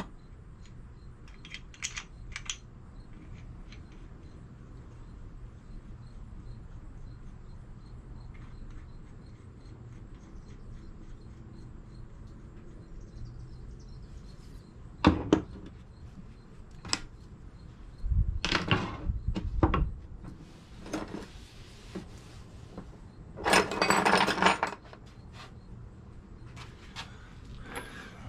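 Metal engine parts clinking and clattering as they are handled and set down during an engine teardown. Light scattered clicks give way, about halfway through, to a few sharp clanks and then two longer spells of clattering.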